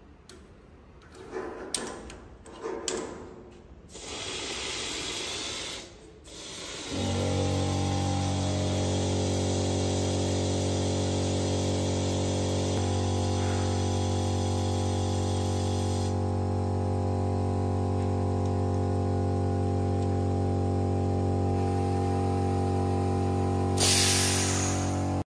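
Electric water pump running with a steady hum as the cooling water is drained from the belt splicing press, after a few clicks and short bursts of hiss. Near the end comes a short loud hiss of compressed air being let out of the press.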